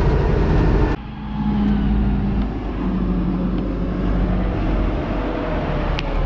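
WCM wheel loader's Cummins diesel engine running steadily as the loader drives. About a second in, the sound changes abruptly from inside the cab to outside the machine.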